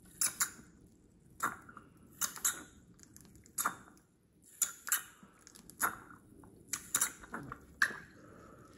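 Air from a small plastic air pump bubbling through a tube into the water of a Sea-Monkeys tank, aerating it: about a dozen short squelching bubble pops at irregular spacing, roughly one or two a second.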